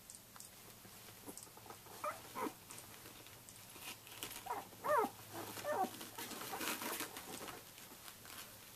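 Twelve-day-old Samoyed puppy giving a handful of short squeaks and whimpers whose pitch bends and falls, the loudest about halfway through. Soft rustling of bedding follows as it squirms.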